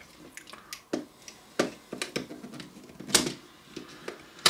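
18650 lithium-ion cells being handled and pushed into a plastic battery compartment against its spring contacts: a handful of sharp clicks and taps about half a second to a second apart, the loudest a little after three seconds in.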